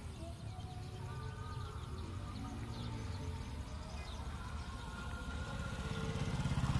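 A small engine running with a low, rapid pulse, getting louder near the end.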